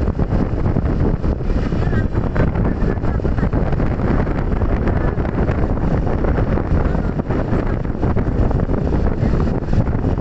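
Strong storm wind buffeting the microphone, a loud, steady rush heaviest in the low end.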